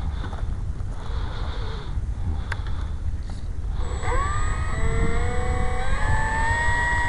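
The electric motor and propeller of a Dynam F6F Hellcat RC plane spool up from about four seconds in: a whine that climbs in pitch in steps as the throttle is advanced. Throughout there is a steady low rumble of wind on the microphone.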